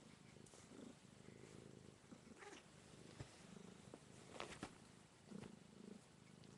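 A long-haired tabby cat purring faintly, close to the microphone, with a few short clicks partway through.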